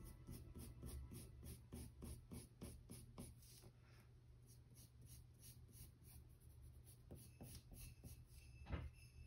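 Faint scratching of a Crayola colored pencil on paper in quick short strokes, about four a second at first and sparser later, as a small shape is gone over again and again. A thump near the end.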